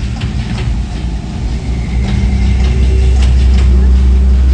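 Loud, deep, steady rumbling drone from a show's sound system, with a low held tone coming in and the level rising about two seconds in.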